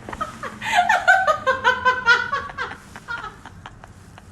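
A person laughing: a quick run of high-pitched laughs starting about half a second in and fading out after about two seconds.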